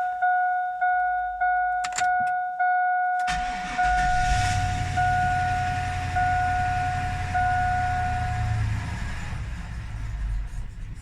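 A dashboard warning chime beeps steadily. About three seconds in, the 2001 Chevrolet Suburban 2500's 6.0 Vortec V8 cranks, catches from a cold start at about 1 degree and idles roughly, its rpm rising and falling as though it might die. The chime stops partway through.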